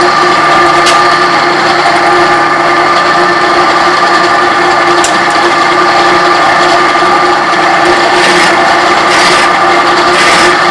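Drill press running steadily with a 3/8-inch bit boring out a pilot-drilled hole in a metal fitting, a continuous machine whine over cutting noise.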